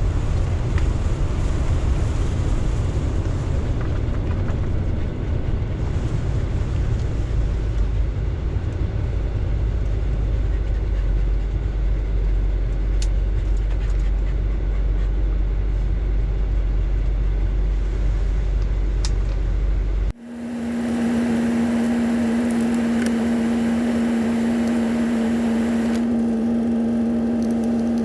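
Cab noise inside a 1990 Fleetwood Bounder motorhome on a windy day: a heavy low rumble of wind and engine under a steady hiss. About twenty seconds in the sound cuts off abruptly and gives way to a steady droning hum.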